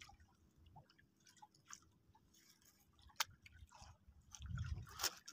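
Faint scattered clicks and crackles of close handling noise, with one sharp click about three seconds in and a low rumble near the end.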